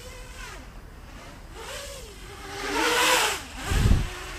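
Diatone GT-M515 racing quadcopter's motors and three-blade propellers buzzing, the pitch rising and falling with throttle. About three seconds in the sound swells loud as the quad sweeps close, followed by a short, loud low thump.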